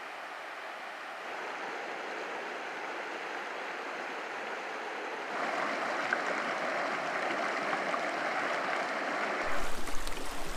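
Berry Creek, a small mountain trout stream, rushing and splashing over rocks as a steady water noise that gets louder about halfway through. Near the end it becomes closer and uneven, with a low hum added.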